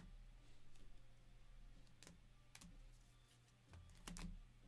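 Trading cards being handled and set down on the table mat: a few faint, sharp clicks and taps, two about two seconds in and a close pair near the end, over a low steady hum.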